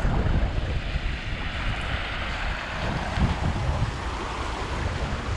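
Floodwater from a swollen creek rushing across a gravel road crossing: a steady hiss of running water, with gusts of wind buffeting the microphone.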